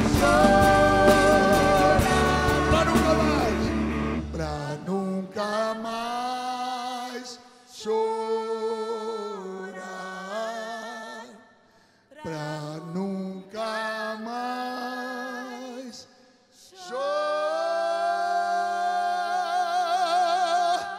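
Portuguese gospel song: a band with bass and drums plays for about four and a half seconds, then drops out and a singing voice carries on alone, in phrases broken by short pauses, ending on a long note held with vibrato.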